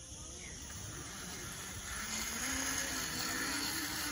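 Zip line trolley running along the cable: a whirring hum with a hiss that starts about two seconds in, rises slightly in pitch and grows louder as the rider picks up speed.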